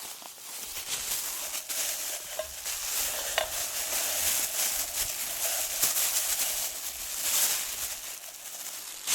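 Food sizzling in a frying pan over a small wood fire: a steady hiss dotted with fine crackles.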